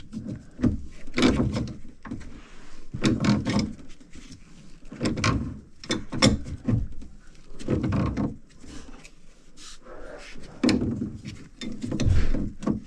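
Irregular wooden knocks, clunks and scraping: an access panel being fitted back on and household items being put back into the cabinet under a kitchen sink.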